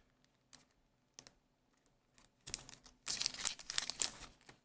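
Trading-card booster box packaging being handled: a few light clicks, then two bouts of crinkling and rustling in the second half as the extra card is taken out.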